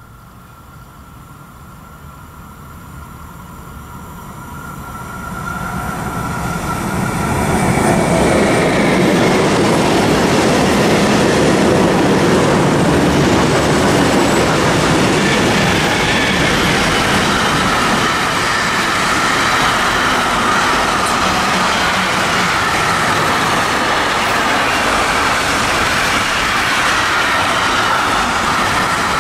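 Freight train approaching and passing on the rails: the rolling rumble grows over the first eight seconds or so, then holds as a steady, loud rumble of hopper wagons and container wagons going by.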